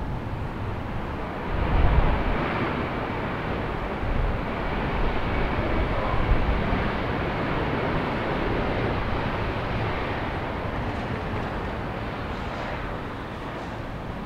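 Airbus A319 airliner's twin jet engines running at taxi power as it rolls past: a steady jet hiss and rumble, swelling slightly about two seconds in, with wind buffeting the microphone.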